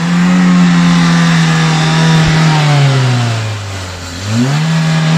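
Perodua Myvi engine revved and held at high revs with the bonnet open while its throttle body is being cleaned. The pitch sinks as the revs drop about three seconds in, then climbs again near the end.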